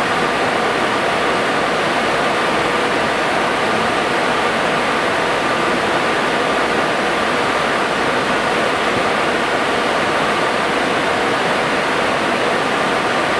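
Steady rush of airflow and engine noise inside an MD-80 airliner in flight, with a faint steady hum under it.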